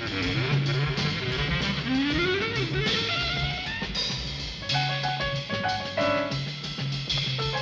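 Up-tempo jazz-funk film score with guitar, a repeating bass line and a drum kit, with a few sliding notes.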